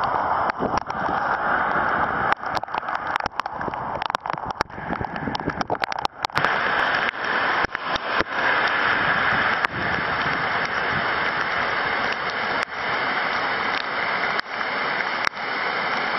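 Heavy rain on a wet street, then, about six seconds in, storm water gushing out of a drain outfall and splashing into a stream. Many sharp clicks run through both parts.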